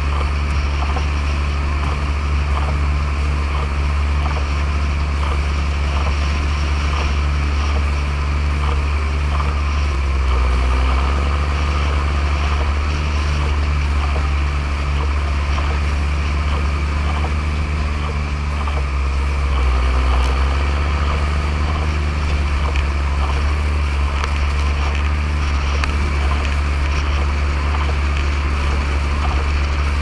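Deutz-Fahr Agrotron MK3 150 tractor's six-cylinder 7.1-litre Deutz diesel running steadily while pushing snow with a front plow blade, with a steady hiss over the engine. The engine note shifts briefly twice, about a third and two-thirds of the way in.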